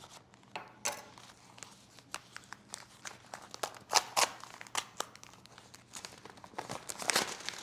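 Paper and card packaging being handled: scattered short crinkles and rustles, the loudest about four seconds in and again near the end.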